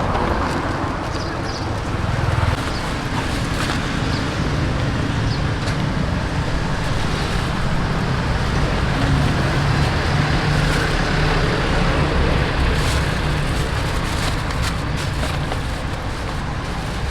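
Steady road traffic noise, motor vehicles running past with a continuous low rumble, and a few short clicks scattered through it.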